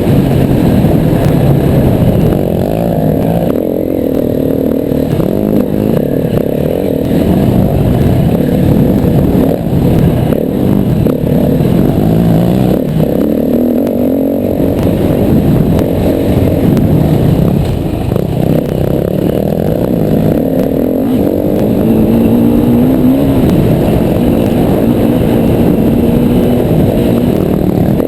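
Yamaha WR250R's single-cylinder four-stroke engine riding off-road, the engine note repeatedly rising and falling as the throttle is opened and closed.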